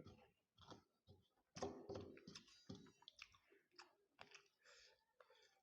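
A person chewing puffed rice with chicken curry close to the microphone: faint, irregular crisp clicks and wet mouth sounds, loudest about one and a half seconds in.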